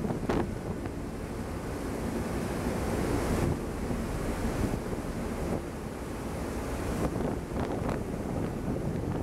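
Wind buffeting the microphone in gusts over the steady rush of a ship's churning wake, with a faint low hum from the ferry underneath.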